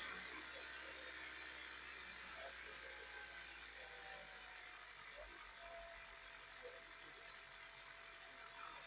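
Toyota Prius petrol engine running faintly and steadily at idle, with a brief louder sound about two seconds in: the misfire has been repaired and the engine runs smoothly.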